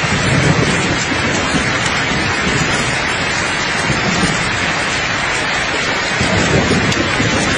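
Steady rain falling, with low rumbles of light thunder swelling about half a second in and again near the end.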